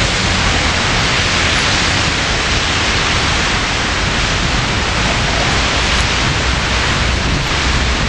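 Blizzard wind blowing across the microphone: a loud, steady rushing hiss with a low rumble underneath.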